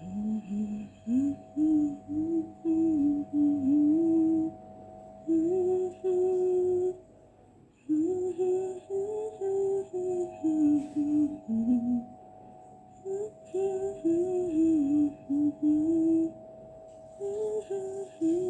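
A woman humming a slow melody in short phrases of held notes, over a steady background tone.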